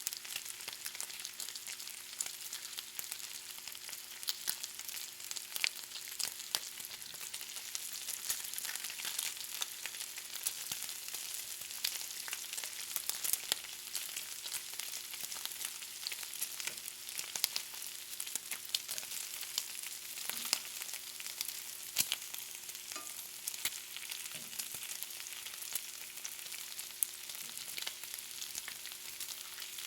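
Bacon frying in a pan: a steady high sizzle with frequent sharp pops and crackles of spitting fat.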